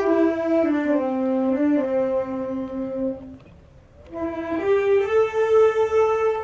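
A single brass horn playing a slow line of held notes that steps down in pitch, breaks off briefly about three and a half seconds in, then steps back up.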